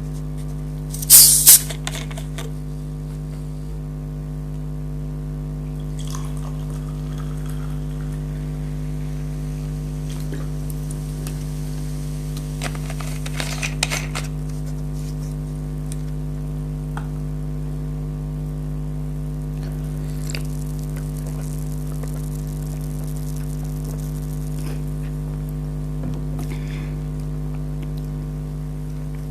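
Steady low electrical hum throughout, with two loud sharp crackles about a second in and scattered softer clicks and rustles later on.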